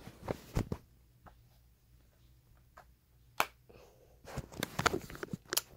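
Handling noise: a few sharp clicks and taps, then a spell of rustling and knocking about four seconds in, as a phone is moved about close to the microphone.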